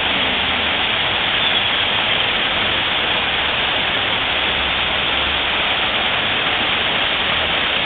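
Artificial waterfall splashing down onto rocks into a pool, a steady, even rush of falling water.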